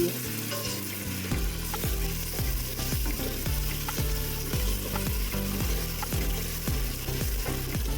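Chopped onions and garlic paste sizzling in hot oil while being stirred, with a steady hiss and regular strokes about three times a second.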